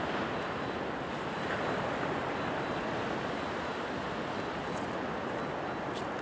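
Surf breaking and washing on a sandy beach, heard as a steady, even rush.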